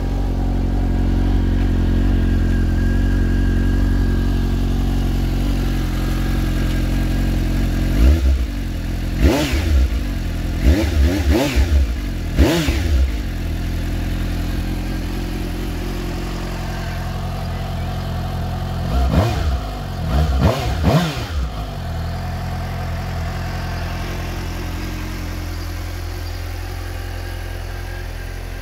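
2021 Suzuki GSX-S750's inline-four engine idling through its stock exhaust, with a run of quick throttle blips about a third of the way in and three more later on, each one rising and falling back to idle. The revs are kept low because the bike is new and still being run in.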